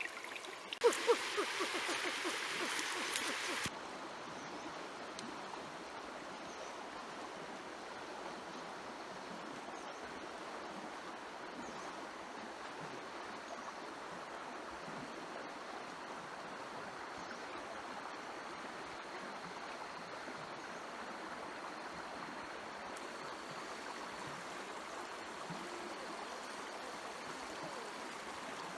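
Steady rush of flowing stream water. A louder burst of noise in the first few seconds cuts off sharply.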